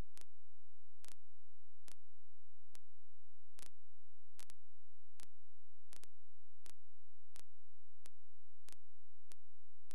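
A steady low electrical hum with sharp clicks about every three quarters of a second; no jet engine noise is heard.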